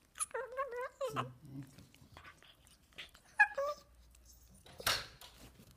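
Jack Russell terriers play-fighting: a dog whines in a wavering pitch for about the first second and again briefly about three and a half seconds in, with a short rustling thump just before the end.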